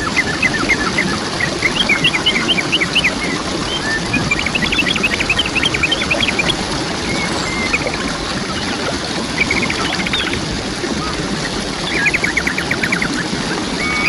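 Waterfall splashing steadily, with small birds chirping over it in several runs of quick, short notes.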